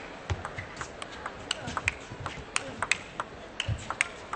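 Table tennis rally: the ball clicks sharply off the rackets and the table in quick, uneven succession, starting about a third of a second in, with a few low thuds among the clicks.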